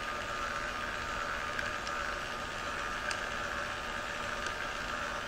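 Stenner fixed-speed peristaltic pump's motor running steadily with a whir, turning the roller head to draw a new feed tube into place, with a few faint ticks from the rollers and tube.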